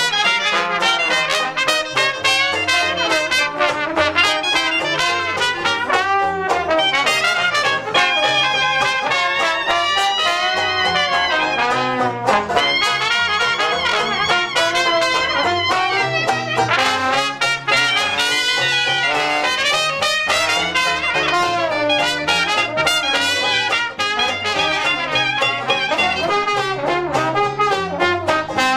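Dixieland jazz band playing live, with trumpet and trombone out front over a string bass keeping a steady beat.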